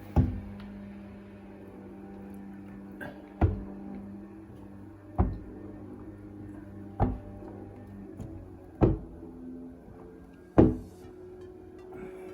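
Background music with six sharp knocks at roughly two-second intervals, from a squeegee stroking water out from under window film and knocking against the glass or frame.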